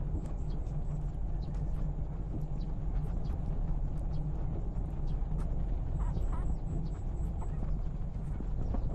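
Newborn puppies suckling at their mother, with faint small clicks and a brief puppy squeak about six seconds in. A steady low rumble of background noise is louder than both.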